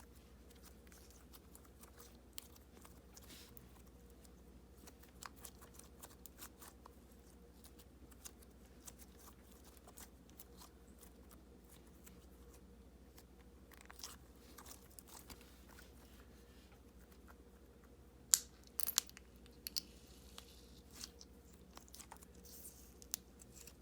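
Jelly-cube slime being kneaded and squished by hand: faint, scattered sticky clicks and pops as the jelly cubes break up, with a few louder clicks about three-quarters of the way through.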